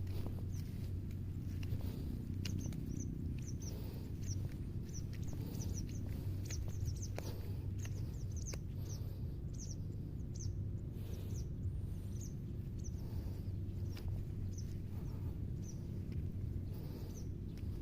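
Small birds chirping: many short, high chirps, irregularly spaced, over a steady low rumble.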